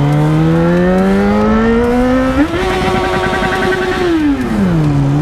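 Yamaha XJ6's inline-four engine under way. Its revs climb steadily, jump sharply about two and a half seconds in and hold high for a second and a half as the rider revs it, then fall away near the end.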